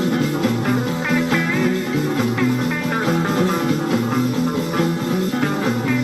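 Instrumental passage of a psychedelic rock song: a lead guitar plays bending notes over a steady bass line.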